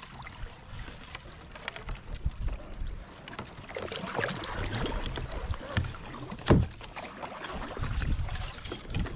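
Kayak being paddled through flooded brush: a paddle dipping and splashing in the water, with twigs and branches scraping and snapping against the hull and paddle. There is one sharp knock about six and a half seconds in, the loudest sound.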